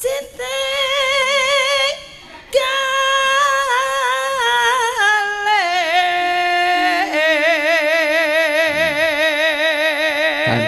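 A woman singing unaccompanied into a microphone: a short phrase, a brief pause, then a long line that steps down in pitch into long held notes with wide vibrato.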